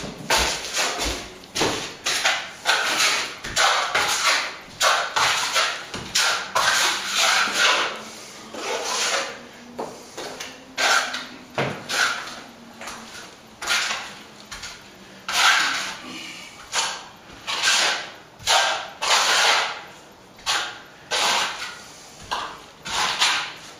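A plasterer's trowel scraping in repeated strokes, roughly one a second, as wet corner cement is spread over a plaster wall and worked off the hawk.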